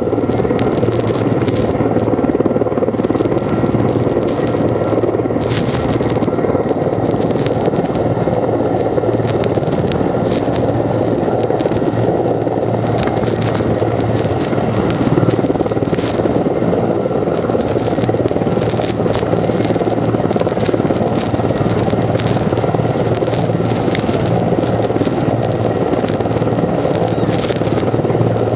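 Heavy-lift firefighting helicopter, a Sikorsky S-64 Air-Crane type, hovering low with a steady, loud rotor and turbine noise while it draws water from a pond through its snorkel. Scattered light crackles run through it.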